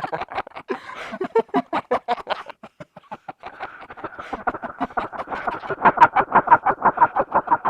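Fast clatter of typewriter key strikes, irregular at first, then settling about halfway through into a steady rapid run of about eight strikes a second that grows louder.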